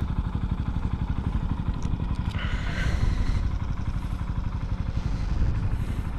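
Honda Monkey 125's small air-cooled single-cylinder four-stroke engine idling steadily, a fast even pulsing putter. A brief hiss about two and a half seconds in.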